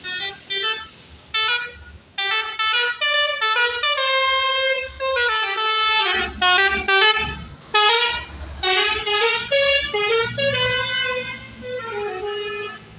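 Basuri multi-tone 'telolet' bus air horn playing a tune: short notes that step up and down in pitch, several tones sounding together, in phrases broken by brief pauses.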